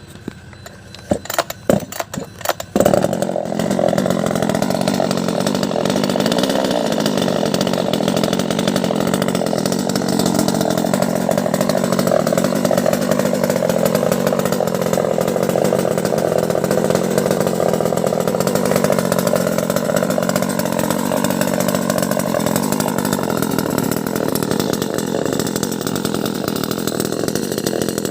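A few sharp clicks and knocks, then a small two-stroke engine on a 258 top-handle chainsaw starts about three seconds in. It keeps running loudly, its pitch rising and falling slowly as the engine speed changes.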